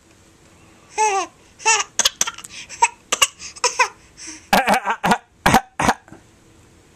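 A 4.5-month-old baby's fake coughs and short high laughing squeals in a coughing game: two pitched squeals early, then a quick run of short coughs.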